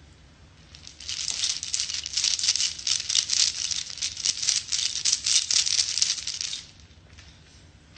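Beads rattling: a dense clatter of many small clicks that starts about a second in and stops more than a second before the end.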